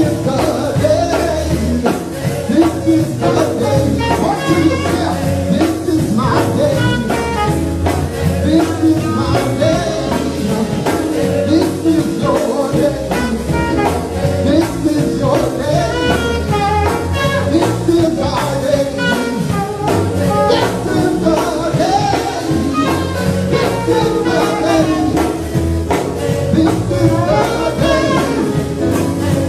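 Gospel praise team singing live: a man's lead vocal through a handheld microphone with backing singers, over instrumental accompaniment.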